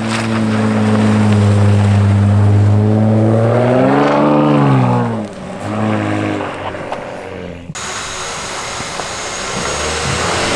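Pickup truck engine running steadily, then revving up and back down about four seconds in. Near eight seconds it cuts abruptly to a steady rushing noise with a faint high whine.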